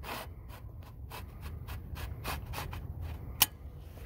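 Rubbing and scratching handling noise against the microphone, with scattered small clicks and one sharper click about three and a half seconds in.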